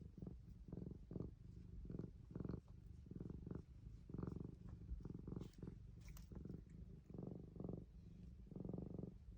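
Domestic cat purring, close by: a low, rapidly fluttering rumble that swells and fades over and over with its breathing.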